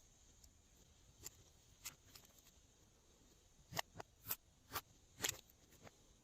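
Glossy slime being handled, giving short, sharp clicking pops: two faint ones, then a run of five about two a second in the second half.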